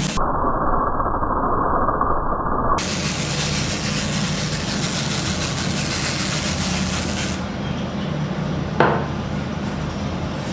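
Homemade paint sprayer's small electric motor running steadily, with a continuous hiss of air and spray. The sound is muffled for the first couple of seconds, and there is a single click near the end.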